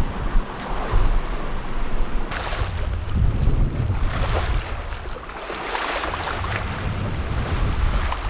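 Sea waves washing and rushing past a sailing yacht under way, with wind buffeting the microphone in a low rumble. The water noise swells in surges about two seconds in and again around six seconds.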